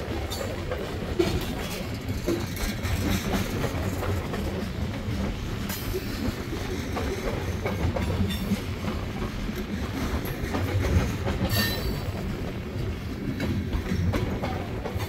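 Freight cars of a bulk-grain train rolling steadily past: a continuous low rumble of steel wheels on rail, with occasional sharp clicks and clanks.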